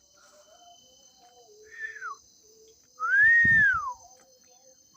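A whistle that rises and falls in pitch: a short one about two seconds in, then a louder, longer one about three seconds in, with low thumps on the microphone under it. Steady high trilling of night insects continues behind it.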